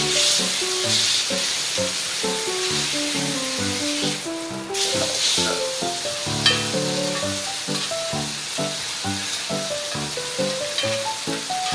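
Bone-in pork chop searing in hot fat on a ridged grill pan: a steady sizzle. Background music plays under it, a melody of short notes changing several times a second.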